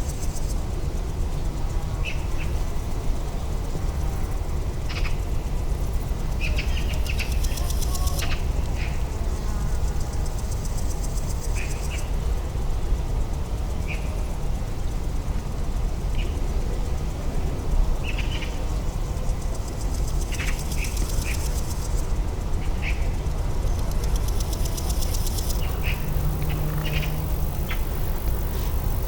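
Outdoor ambience: a steady low rumble with short bird chirps scattered through it every second or two.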